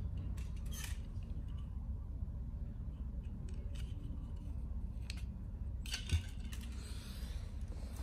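Light plastic clicks and taps from handling a small toy RC helicopter and its red plastic canopy shell, with a sharper knock about six seconds in, over a steady low background hum.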